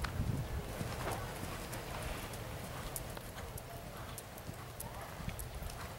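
A horse's hoofbeats at the canter on the sand footing of a riding arena.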